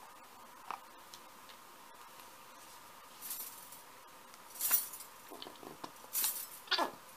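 Plastic squeeze bottle of fluid acrylic paint sputtering as paint and air are squeezed out onto a gel plate: several short hissing spurts, then a squelch that falls in pitch near the end.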